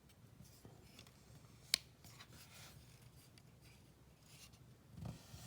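Knife blade of an SQT 2048 multitool pliers being opened by hand. Quiet metal rubbing and small clicks, with one sharp click nearly two seconds in.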